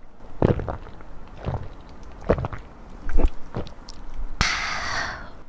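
A person gulping beer from a can close to the microphone, about seven swallows over four seconds, followed by a breathy 'ahh' exhale of about a second.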